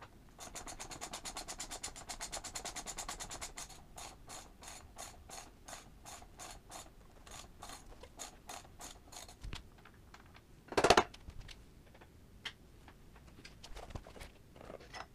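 Ratchet wrench clicking, fast and even at about ten clicks a second for the first few seconds, then in slower, irregular runs, as a 22 mm hex socket unscrews a motorcycle's front axle. A single louder clunk about eleven seconds in.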